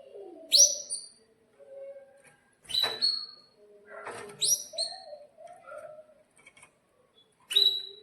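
Domestic canary calling in sharp, high chirps, four loud ones a couple of seconds apart, with softer low warbling sounds in between.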